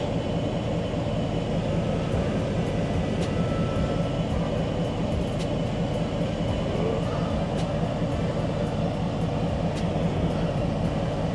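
Ford F250 pickup idling, a steady low hum, with faint even ticking from about two seconds in.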